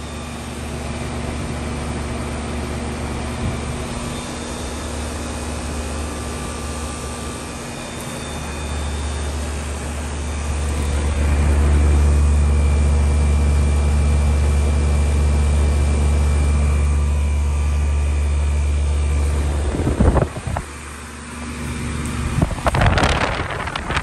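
A 2003 Lennox Merit Series 3-ton heat pump outdoor unit running in heat mode: a steady hum from the compressor and condenser fan that grows louder about a third of the way in. Near the end come a few brief loud rushes of noise.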